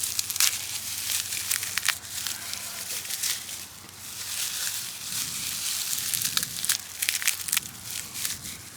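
Dry grass being crushed, rubbed and torn apart by hand into fine tinder, a dry crackling rustle with many small snaps.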